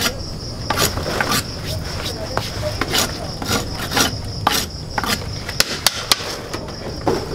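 A parang (machete) blade being scraped against a concrete floor in short, irregular strokes, about two a second: the blade being sharpened. Insects keep up a steady high chirring behind it.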